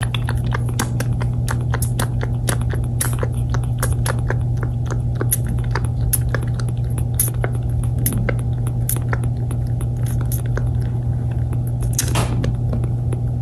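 Kitten suckling on a feeding-bottle nipple: rapid wet sucking clicks and smacks, several a second, over a steady low hum.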